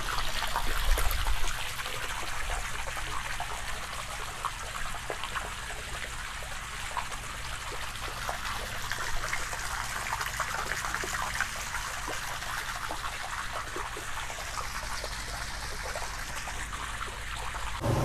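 A steady jet of water from a garden hose splashing into a part-filled above-ground pool as it fills.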